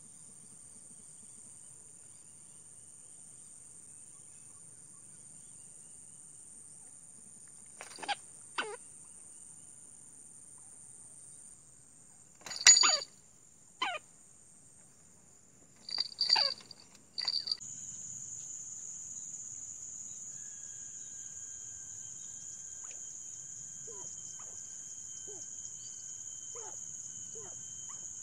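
Steady high-pitched insect chorus of crickets, with a handful of sharp knocks and clattering sounds between about 8 and 17 seconds in. After that the insect chorus is louder, with faint steady tones and short falling blips running through it.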